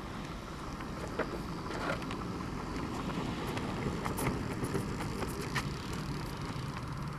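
Low steady rolling and wind noise from a human-powered streamliner coasting slowly on asphalt as a person runs beside it and catches it, with a few sharp taps from footsteps and handling of the shell.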